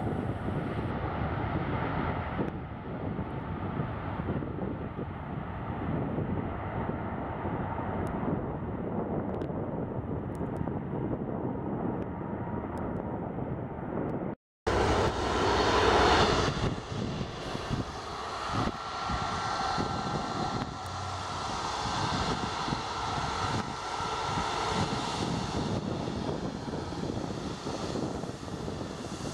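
Boeing 737 jet engines running, a steady rumble across the airfield. The sound cuts off abruptly about halfway through, then resumes louder and closer with a steady high whine from a taxiing 737 MAX's engines.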